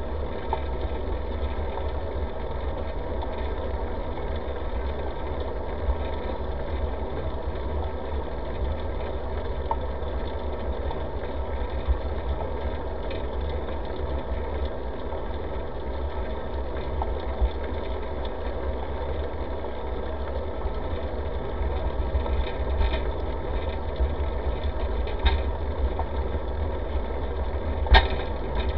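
Steady low rumble and rattle of a bicycle riding on a paved path, picked up by a camera mounted on the bike: road vibration and wind on the microphone. A few sharp clicks from bumps, the loudest near the end.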